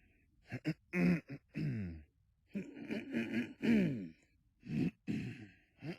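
Men's voices clearing their throats over and over, about eight short, gruff bursts in quick succession, each falling in pitch.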